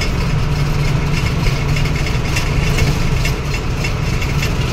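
Truck engine running steadily while driving, heard from inside the cab, with a continuous irregular jangling rattle from loose parts in the cab.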